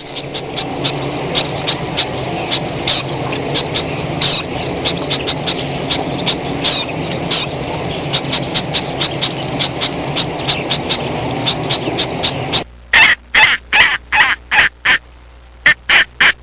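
Birds calling. First comes a noisy flock with many short, sharp calls overlapping. Then, after an abrupt change about twelve and a half seconds in, a single clearer voice gives a run of rapid, loud short calls.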